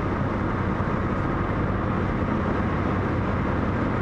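A car being driven at a steady speed, heard from inside the cabin: an even, unbroken low rumble of the moving vehicle.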